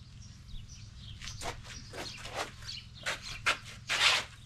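Small birds chirping faintly, with several short scuffing noises over a steady low hum; the loudest scuff comes near the end.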